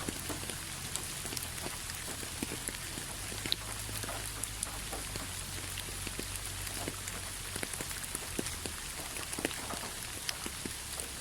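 Steady rainfall, with many individual drops striking close by at irregular moments.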